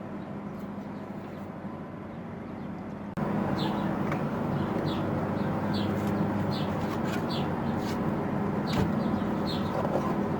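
Birds chirping repeatedly over a steady low mechanical hum; the hum gets abruptly louder about three seconds in.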